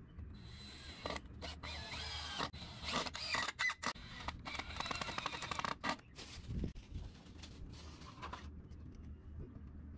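Electric drill running in short, uneven bursts at the base of a wooden fence post on brick paving, its motor whine rising and falling with the trigger, mixed with scraping. The drilling is busiest in the first six seconds and dies down after.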